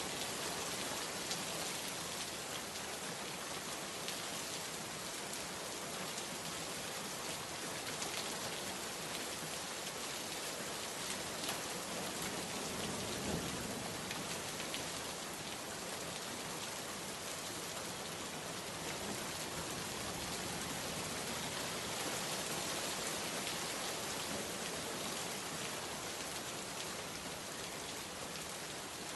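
Steady rain: a dense, even hiss of countless drops falling on surfaces.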